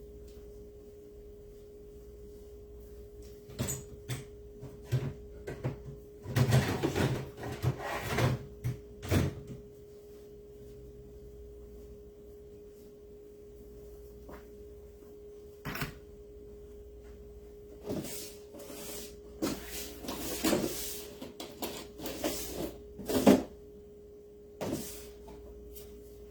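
Rubbing and light knocks of wax being worked onto a cutting board by hand, in two spells, the louder one a few seconds in. A steady hum sounds underneath throughout.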